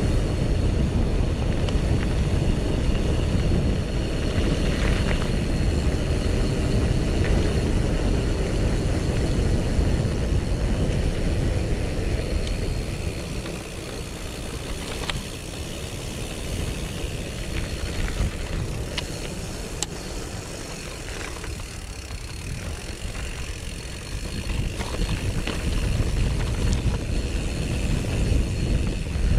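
Mountain bike rolling down a dirt and concrete track: wind noise on the microphone and tyre rumble, with scattered clicks and rattles from the bike. The rumble eases for about ten seconds midway, then builds again.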